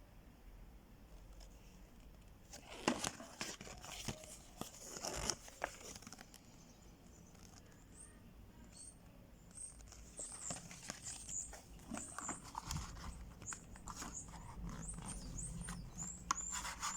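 Packaging being handled by hand: crinkling and rustling with small clicks, in two bouts, the second with a string of short high squeaks.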